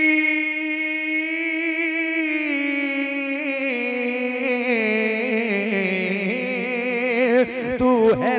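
A man singing a naat, drawing one word out into a long melismatic note that slowly falls in pitch with turns and wavers. The held note breaks up near the end.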